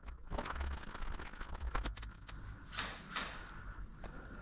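Footsteps on a debris-strewn concrete floor: gritty crunching and scraping with scattered clicks and knocks.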